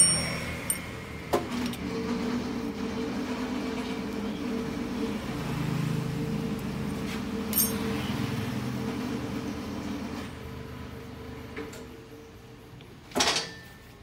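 A steady machine hum, with a few light metal clinks as the clutch shoe assembly in the lathe chuck is handled by hand, and a louder knock near the end.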